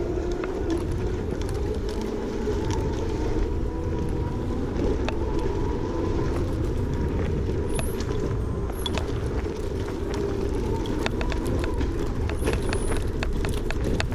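Electric scooter ridden fast over a dirt trail: a steady rumble of tyres and wind with a faint motor whine, and many quick rattles and knocks as it goes over bumps.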